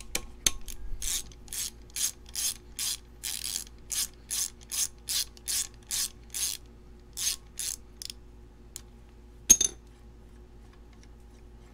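Hand socket ratchet clicking in a run of quick strokes, about two or three a second, as a bolt is worked on the front timing end of a GM Ecotec engine block. The clicking stops, and about two seconds later comes one sharp clank, the loudest sound.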